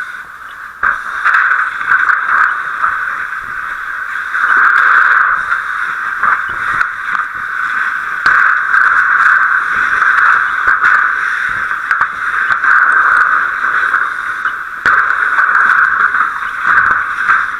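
A steady, loud hiss with many short clicks and knocks scattered through it; the hiss grows louder about four seconds in.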